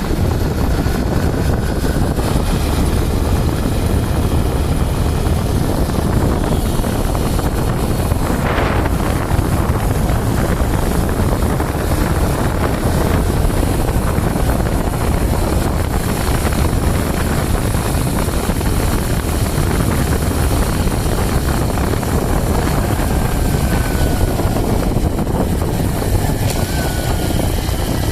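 TVS Sport 110i motorcycle's small single-cylinder engine running steadily under way, with road and wind noise, heard from the rider's seat. The owner reports that the nearly new bike makes a strange noise, which is not singled out here.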